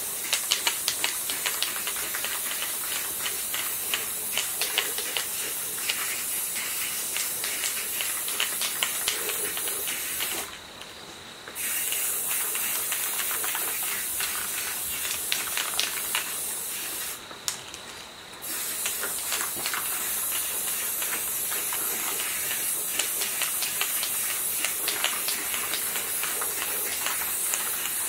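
Aerosol spray-paint can hissing steadily as paint is sprayed, stopping twice for about a second as the nozzle is let go.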